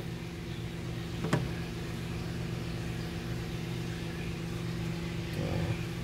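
Steady low background hum with a single sharp click about a second in.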